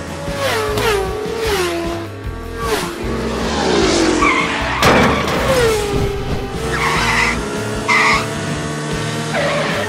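Dubbed race-car sound effects for a toy car: tyres screeching in several falling glides, with engine noise, over background music. A short sharp noise comes about five seconds in.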